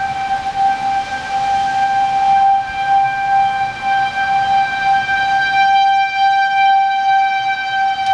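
Outdoor tornado warning siren sounding a steady tone, its loudness swelling and dipping slightly.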